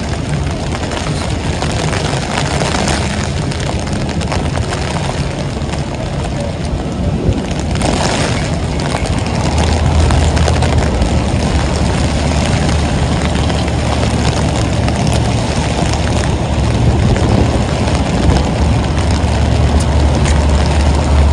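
Heavy rain falling on a city street with traffic running, a steady rush of rain noise throughout. A deep rumble of a heavy vehicle engine grows louder about halfway through.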